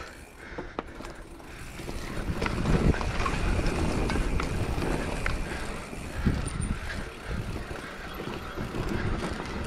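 Mountain bike rolling fast down a wet dirt trail: a steady rumble of tyres and the bike over the ground, louder about two seconds in, with occasional clicks and knocks from the bike.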